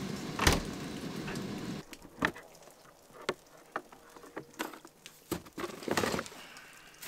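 Maple sap boiling hard in an evaporator pan, a steady bubbling hiss with one sharp knock about half a second in. It cuts off after about two seconds, giving way to scattered clicks and knocks from plastic sap jugs being handled in a sled.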